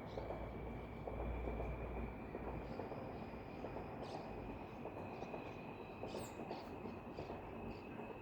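Outdoor ambience: a steady high insect trill under a crackling rustle, with a low rumble in the first two seconds and a few short high chirps later on.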